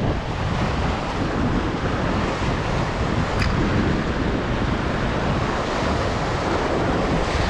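Steady wind buffeting the microphone over the wash of sea waves, with one faint click near the middle.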